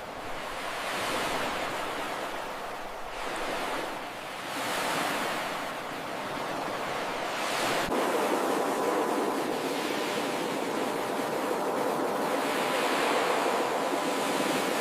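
Ocean surf: waves breaking and washing up, the rushing sound swelling and fading several times, with a fuller, steadier wash from about halfway.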